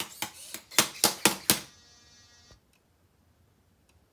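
R2-D2 replica droid making a rapid series of sharp clicks, about four a second, for a second and a half. A faint, steady buzz follows and stops abruptly with a click about two and a half seconds in.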